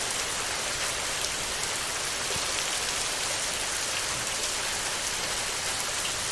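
Steady heavy rain on a metal roof: a dense, even hiss with many individual drops ticking through it.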